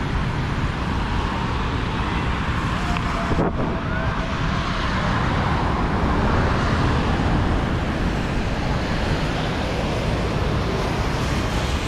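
Steady road traffic on a rain-wet multi-lane road: cars and buses driving past with a continuous hiss of tyres on the wet surface.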